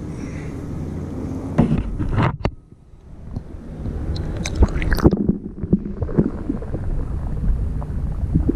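Low rumbling water and handling noise from a waterproof action camera held at the waterline beside a kayak and dipped below the surface. A few sharp knocks come near the middle, after a brief drop in level about two and a half seconds in.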